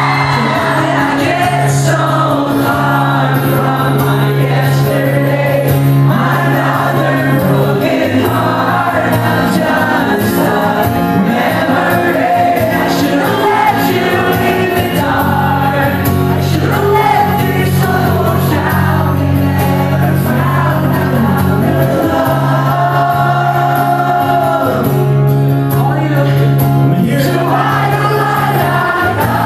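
Live acoustic band performance: strummed acoustic guitar chords under male lead vocals, with many voices singing along, heard from inside a loud audience.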